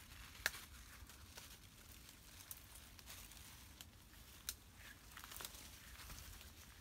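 Faint rustling of leafy foliage with scattered sharp snaps of stems and twigs, about half a dozen, the loudest about half a second in, as wild leaves and shoots are picked by hand in the undergrowth.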